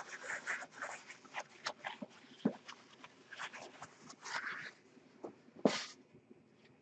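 Handling noises from painting by hand on a table: scattered soft rustles and small taps, with one sharper knock about a second before the end.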